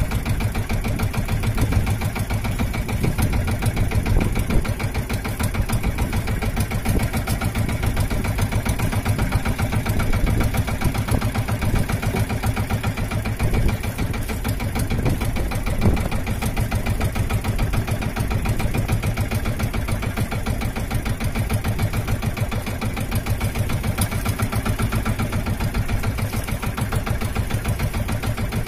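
Engine of a motorized outrigger fishing boat running steadily with a rapid, even beat, strongest in the low range.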